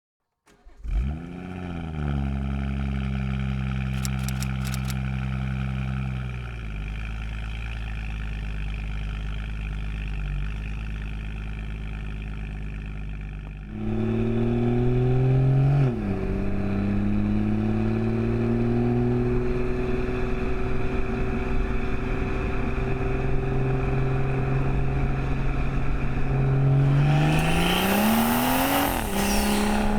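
BMW M140i's B58 3.0-litre turbo inline-six, with sports cat and resonator delete, starting up about a second in with a quick flare, then running at a raised cold idle that settles lower after a few seconds. About halfway through it gets louder with a brief rise in revs that drops back sharply, then runs steadily until the revs climb again near the end and fall back.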